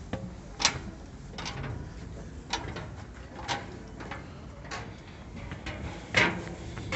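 Footsteps clanking on steel stairs and a diamond-plate steel landing, about six footfalls roughly a second apart, the last one the loudest.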